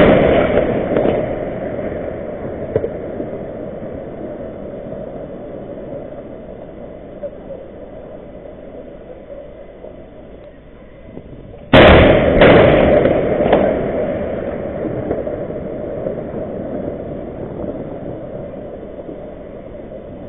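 Explosions from a Russian missile attack. The rumble of one blast dies away slowly, then about twelve seconds in another sudden loud blast comes, followed closely by two more bangs, and its rumble fades over several seconds.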